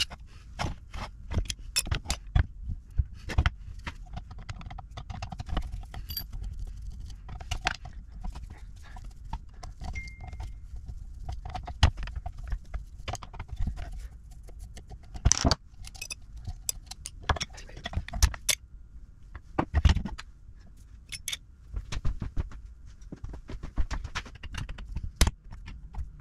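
Irregular metal clicks, clinks and knocks from a Holley two-barrel carburettor being taken apart by hand with a screwdriver, its metal parts and screws knocking against each other and against a steel bench plate, with a couple of louder knocks in the second half.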